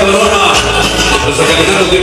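Loud Latin dance music played through a sonidero's sound system, with a repeating beat.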